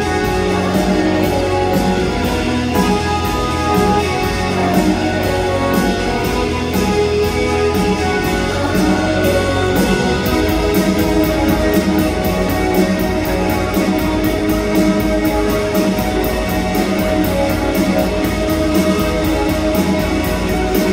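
Live rock band playing loud: electric guitar over a drum kit keeping a steady beat.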